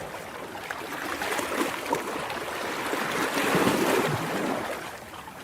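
Ocean waves washing in: a swell of surf builds to a peak about three and a half seconds in, then ebbs away.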